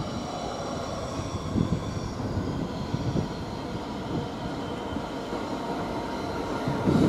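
Class 66 diesel locomotive approaching, its engine and wheels on the rails growing louder. Thin high ringing tones sound in the first couple of seconds and then fade.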